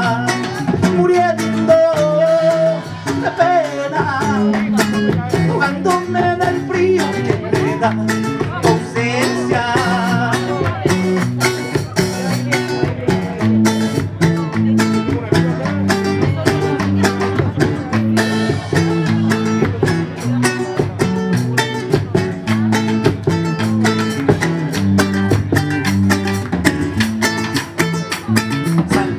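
Live band playing an instrumental break: strummed acoustic guitar chords over a drum kit keeping a steady, busy beat with cymbals.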